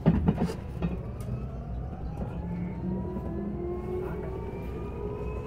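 Olectra K9 electric bus heard from inside the cabin. Its drive motor whines and rises steadily in pitch from about two seconds in as the bus accelerates, over a steady road rumble. A couple of loud knocks sound at the very start.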